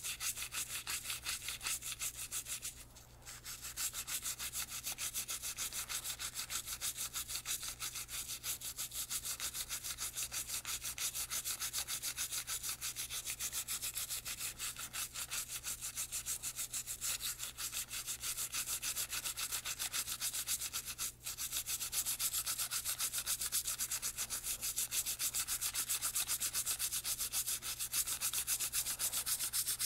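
Toothbrush bristles scrubbing a .22 rimfire suppressor part in fast, even back-and-forth strokes, working off fouling softened by foam cleaner. The strokes stop briefly twice, near the start and about two-thirds of the way in.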